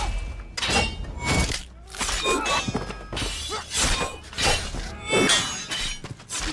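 Steel swords clashing in a close fight: a quick series of clangs that ring on, mixed with thuds of blows, one strike every half-second or so.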